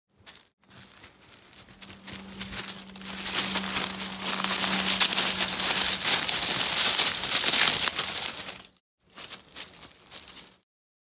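Dry fallen leaves rustling and crackling, swelling louder in the middle, cutting out near the end and then returning briefly.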